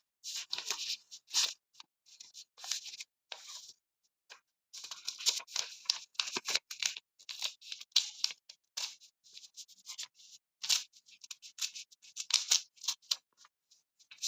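Pages of a paper book being leafed through: irregular paper rustles and scratches, with a short pause about four seconds in.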